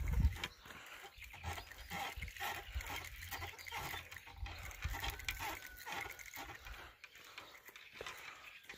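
Animal calls repeated in a quick, even rhythm, about three a second.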